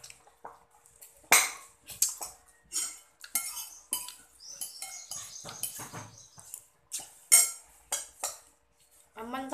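Metal spoon clinking and scraping against a ceramic bowl as food is scooped from it: a string of sharp, irregular clinks with quieter scraping between.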